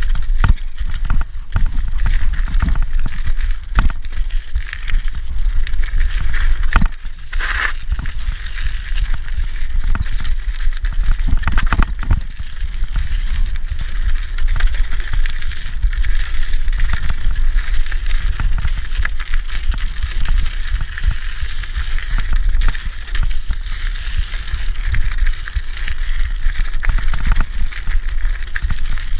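Rigid 1990 Peugeot Hurricane mountain bike ridden fast on dirt singletrack, its Michelin Wild Gripper tyres running over the trail. There is a steady low wind rumble on the microphone, with frequent irregular knocks and rattles as the unsuspended bike hits bumps.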